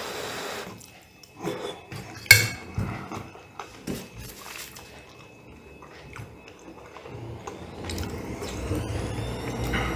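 Metal fork clinking and scraping against a ceramic plate of pasta, with one sharp clink about two seconds in, and chewing. Near the end a rising whine and a low rumble build up in the background.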